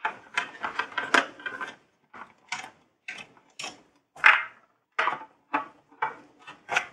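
A string of irregular light clicks and taps from a screwdriver and small screws working against a metal licence-plate bracket as the cover's screws are backed out.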